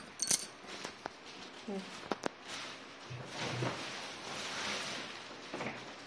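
Clear plastic wrapping rustling and crinkling as a hard-shell suitcase is pulled out of its packaging, with a few sharp clicks and knocks near the start and about two seconds in.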